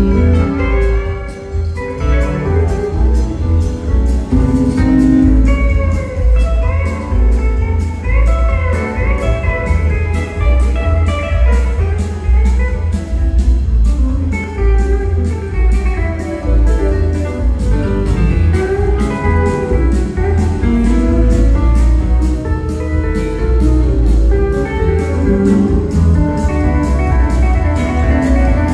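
Live blues-rock band playing: electric guitar lines with bent notes over organ, bass and a steady drum beat, heavy in the bass as heard from the audience in a theatre.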